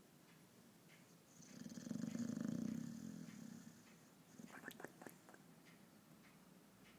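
Sleeping bulldog snoring: one long, rattling snore starting about a second in and lasting a couple of seconds, then a few short, sharp noises about five seconds in.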